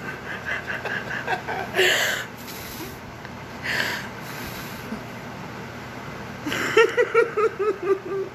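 A woman laughing: a string of short giggles, two sharp breaths, then near the end a quick run of about eight loud 'ha' pulses.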